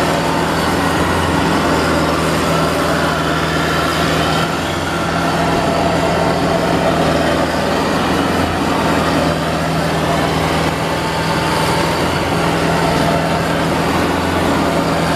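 Engine of a Crown Sumo 106 hp tracked rice combine harvester running steadily under load as the machine crawls through deep paddy mud, a constant engine drone.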